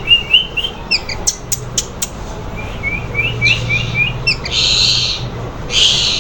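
Parrots chirping in quick runs of short repeated notes, about four a second, with a few sharp clicks about one to two seconds in and three harsh, noisy calls in the second half.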